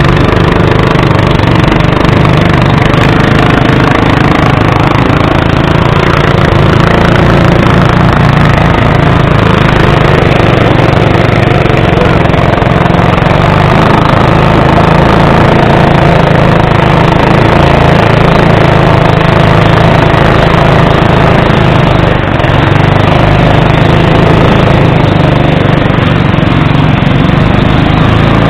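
Wooden longboat's small petrol engine running steadily, close by and loud, as the boat moves through fast, high river water. Water rushes along the hull.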